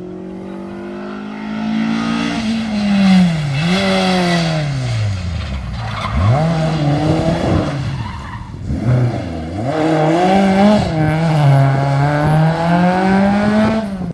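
Historic rally car engine at full throttle, the note climbing hard and then dropping sharply several times as it shifts gear and lifts off for corners.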